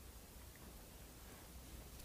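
Near silence: room tone with a faint steady hiss and low hum.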